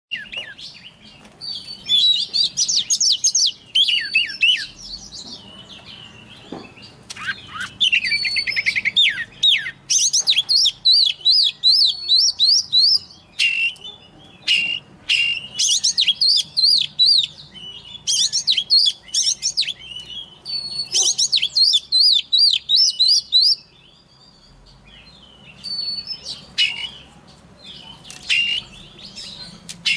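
White-rumped shama singing: phrases a few seconds long of fast, repeated high notes and trills, separated by short pauses.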